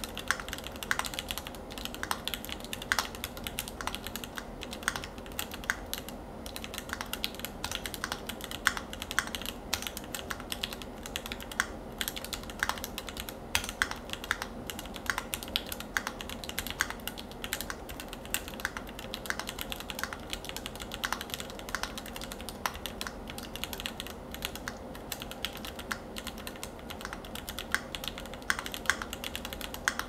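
Continuous typing on a Keychron Q2, a gasket-mounted aluminium mechanical keyboard fitted with Gateron Yellow Pro linear switches, with no foam added under the board. Keystrokes come several a second in an uneven patter, with louder strokes standing out here and there.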